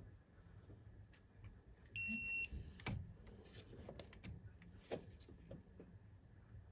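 A short, high electronic beep of about half a second, about two seconds in, typical of a digital torque wrench signalling that a bolt has reached its set torque. Between the beeps come a few sharp clicks of metal tools on the engine.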